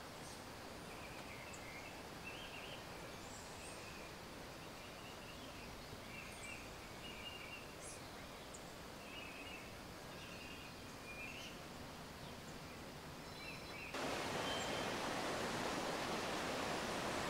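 Steady rush of a mountain stream, with short high chirps repeating over it. About fourteen seconds in, it cuts to a louder, closer rush of water.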